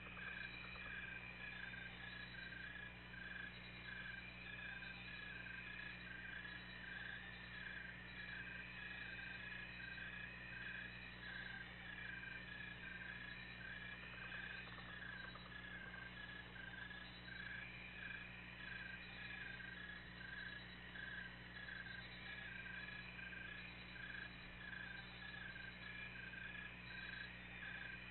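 Faint chorus of night-calling animals: a chirp repeating about once a second and a high trill that stops and starts every few seconds, over a low steady hum.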